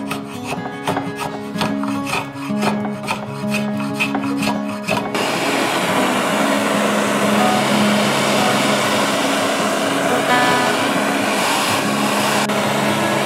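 A hand file rasping a wooden tomahawk handle in quick, evenly repeated strokes. About five seconds in this gives way to the steady hiss of a handheld gas torch flame played along the handle, scorching the wood dark. Background music runs throughout.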